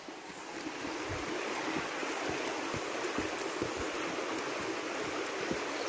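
A river rushing steadily below the trail, growing louder over the first second or so and then holding, with footsteps on a dirt path about two to three times a second.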